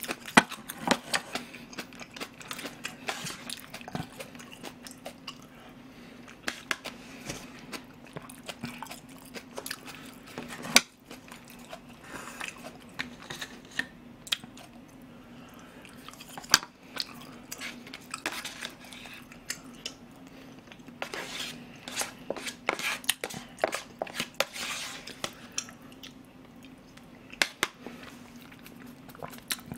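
Close-miked eating sounds: chewing of rice porridge and side dishes. Wooden chopsticks make scattered sharp clicks against plastic containers and side-dish cups. A faint steady low hum runs underneath.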